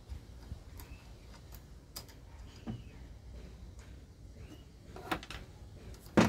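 Scattered light metallic clicks and taps as a car starter motor is turned and worked by gloved hands on a sheet-metal bench, with one louder knock near the end.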